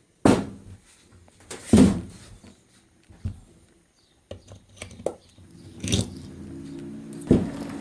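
Several separate knocks and thumps of something being handled, then a steady low mechanical hum starts about four seconds in and keeps going.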